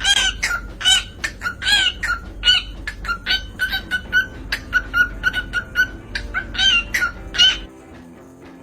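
A bird calling over and over in short, quick squawks, two or three a second, each bending up and down in pitch, over a low steady hum; the calls stop near the end.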